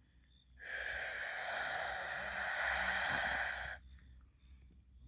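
A steady breathy hiss, starting about half a second in and cutting off sharply some three seconds later.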